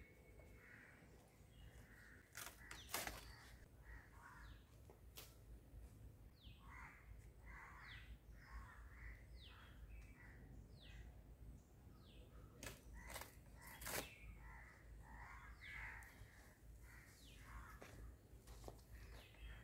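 Crows cawing repeatedly while small birds give short falling chirps. A few sharp cracks stand out, around three seconds in and again around thirteen to fourteen seconds in.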